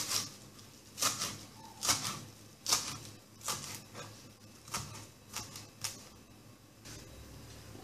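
Kitchen knife chopping fresh parsley on a plastic cutting board: about nine chops, roughly one a second and a little faster toward the end, each a short tap of the blade on the board, stopping about six seconds in.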